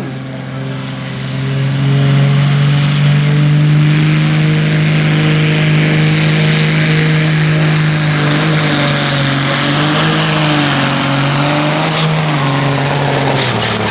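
Supersport-class pulling tractor's turbocharged diesel engine at full throttle, hauling the weight sled. A high turbo whistle rises over the first few seconds, and the engine note holds steady, then falls away near the end.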